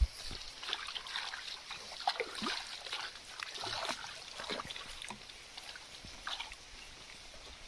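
Water splashing and sloshing in irregular bursts as a singed carcass is scrubbed and rinsed by hand in a shallow stream, with a sharp knock right at the start.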